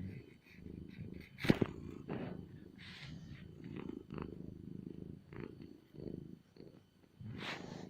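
Domestic cat purring in a low, pulsing rumble. A sharp click about a second and a half in is the loudest sound, and a brief rustle comes near the end.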